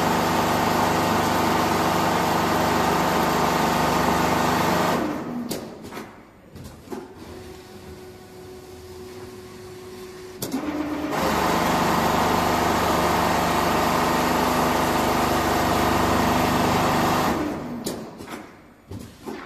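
Four-head CNC pattern sewing machine stitching quilted jacket panels, running with a steady mechanical hum. It stops about five seconds in, leaving a few clicks and a faint steady tone for about six seconds, then runs again and stops once more near the end with a few clicks.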